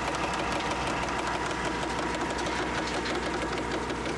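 Placer-mining wash plant running steadily: a fast, even mechanical rattle over a steady hum.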